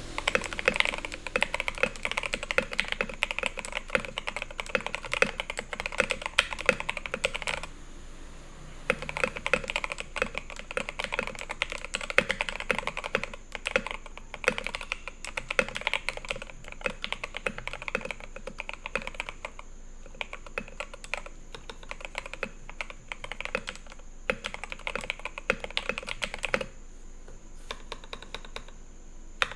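Typing on a TM680 custom mechanical keyboard with lubed and filmed Alpaca V2 linear switches, XDA keycaps and an aluminium plate: fast runs of keystrokes. The typing pauses briefly about eight seconds in and thins to scattered presses near the end.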